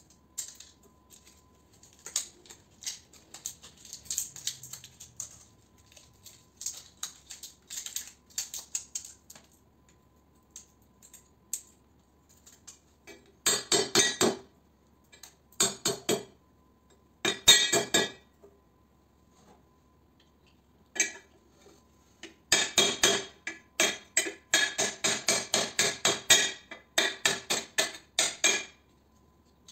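Small hammer striking the metal parts of an electrical ballast held in a wooden jig, with sharp clinks. Light clicks and scrapes from hand tools come first; short quick runs of blows follow about halfway through, and near the end comes a longer run of about three or four blows a second.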